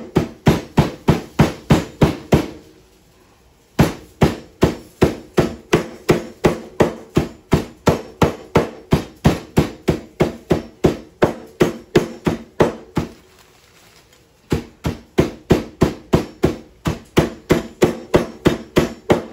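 Metal meat-tenderizer mallet pounding dried bread in a plastic zip-top bag against the countertop, crushing it into breadcrumbs: a steady run of about three sharp strikes a second. The pounding stops twice for about a second.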